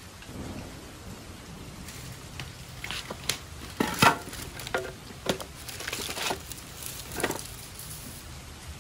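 Firewood sticks knocking and clattering against each other as they are pulled from a pile and set down on a concrete floor: a handful of sharp wooden knocks over a few seconds, the loudest about four seconds in, over steady rain.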